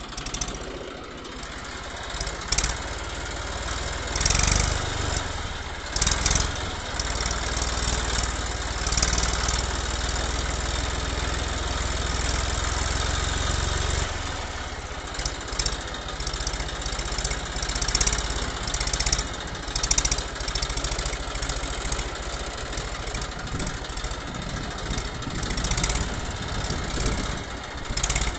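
Tractor engine sound running steadily with a low hum, then going uneven with brief louder surges from about halfway through.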